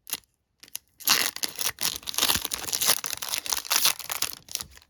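A trading card pack's wrapper being torn open and crinkled, a dense run of tearing and crackling starting about a second in.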